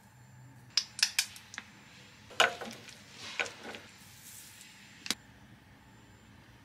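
A metal spoon clinking and scraping against a small glass bowl while stirring shredded imitation crab sticks with mayonnaise. It gives a quick run of sharp clinks in the first half and one more clink about five seconds in.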